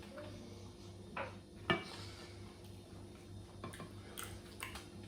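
Cutlery clinking against a dish, five or so short clicks, the sharpest about one and a half seconds in, over a faint steady hum.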